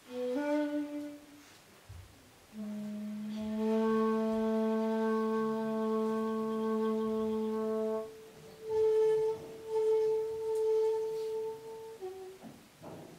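Shakuhachi, the end-blown bamboo flute, playing a solo honkyoku phrase: a short rising figure, then a long low held note of about five seconds, then a note an octave higher held for about three seconds in swelling breath pulses, falling to a brief lower note near the end.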